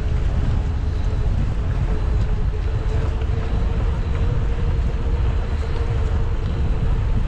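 Wind buffeting the microphone of a moving bicycle as a steady low rumble, with a steady hum above it that rises slightly in pitch about two and a half seconds in.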